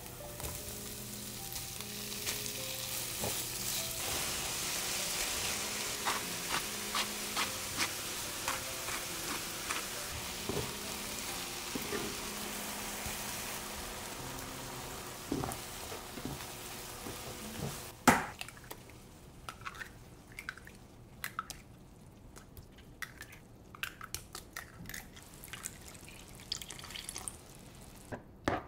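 Green onions, then chopped shrimp and vegetables, sizzling in oil in a nonstick frying pan, with a wooden spatula stirring and tapping against the pan. About 18 seconds in, a sharp knock is followed by a much quieter stretch of scattered light clicks.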